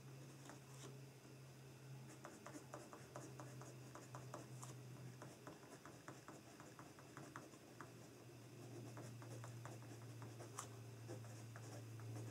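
Pen writing on notebook paper: faint scratching with many small taps and clicks of the pen tip. A steady low hum runs underneath.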